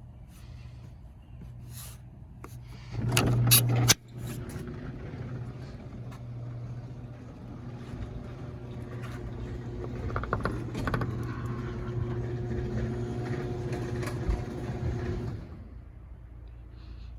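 Garage door opener started from a keypad: a loud burst of clatter about three seconds in, then the motor runs steadily for about eleven seconds as the door travels, and stops near the end.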